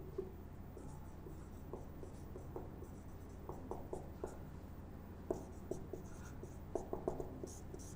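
Marker pen writing on a whiteboard: a faint run of short strokes and taps as the letters are written, over a low steady hum.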